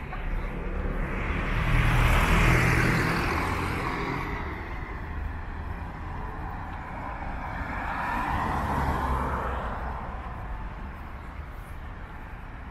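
Two cars driving past on the street, each swelling up and fading away: the louder one about two seconds in, the second about eight seconds in, with steady low traffic noise between them.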